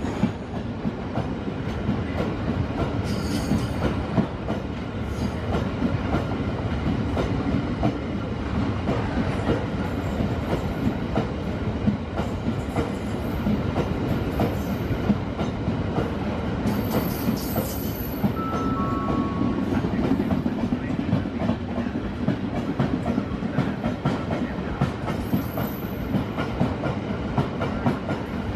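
Freight train running past at speed: a continuous rolling rumble with rapid clickety-clack of wheels over the rail joints, and brief high wheel squeals a few times.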